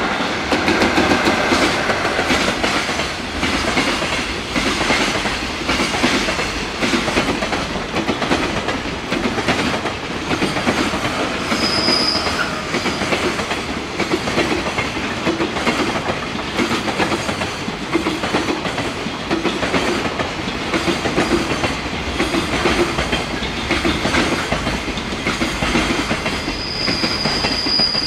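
A container freight train's flatcars rolling past, the wheels clattering in a steady rhythm over the rail joints. A brief high squeal about twelve seconds in and again near the end.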